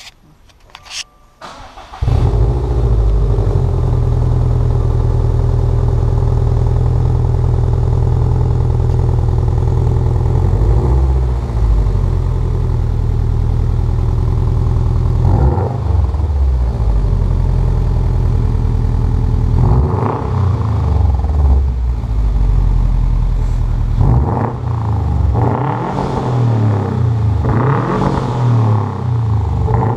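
Subaru STi's 2.5-litre turbocharged flat-four firing up about two seconds in through an Invidia Q300 stainless cat-back exhaust, then idling. It is blipped up in revs a few times, more often near the end.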